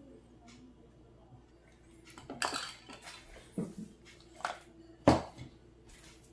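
Kitchen utensils and a baking pan clinking and knocking. After a quiet start there are four or five sharp knocks, the loudest about five seconds in.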